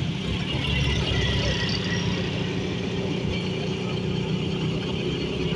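Motorcycle engine running steadily under way, with road and wind noise and surrounding traffic.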